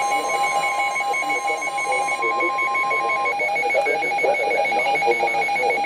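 Weather alert radio alarm: a steady high warning tone, the NOAA Weather Radio warning alarm tone that announces an incoming warning, cuts off about three seconds in. Under it runs a rapid electronic beeping that keeps going.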